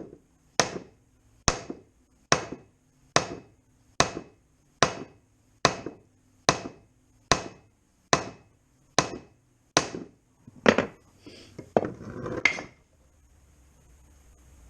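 Hammer blows on a block of wood laid over a plastic motorcycle skid plate, knocking a dent back out: about fourteen sharp, evenly paced strikes at a little over one a second, then a few lighter, irregular knocks before stopping.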